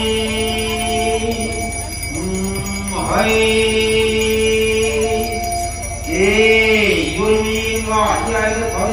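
Singing in long held notes, with jingling bells ringing along. New phrases begin about three seconds in and again about six seconds in.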